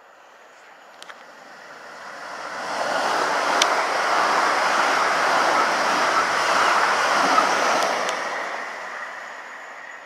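Class 450 Desiro electric multiple unit passing close by: a rush of wheel and rail noise that swells for about two seconds, holds for several, then dies away. A few sharp clicks stand out over it.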